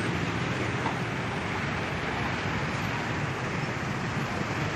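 Steady road traffic noise: engines and tyres of cars and motorcycles.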